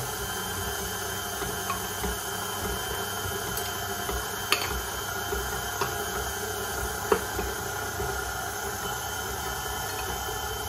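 KitchenAid stand mixer running steadily at a low speed, its beater working cookie dough as flour is spooned in, with a few short clicks of spoon or utensil.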